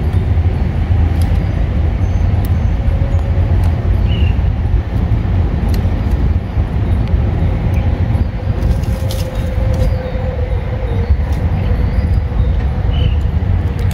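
Wind rumbling on the microphone: a loud, steady low roar that rises and falls, with a few light snaps and rustles of leafy vine shoots being picked by hand.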